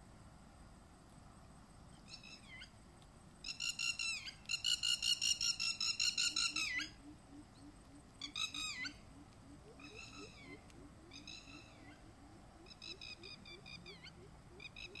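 A bird calling in quick runs of repeated notes: a loud run from about three and a half to seven seconds in, then shorter phrases about every second. Beneath it, from midway on, a faint low call repeats about three times a second.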